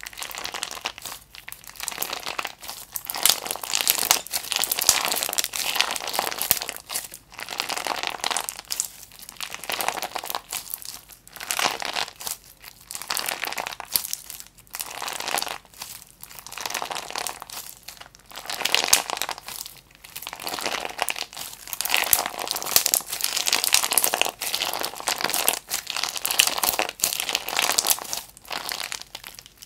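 Clear-base slime with small heart-shaped add-ins being squeezed, folded and stretched by hand. It gives crackly, crinkling pops in repeated bursts, one with each squeeze, with short pauses between.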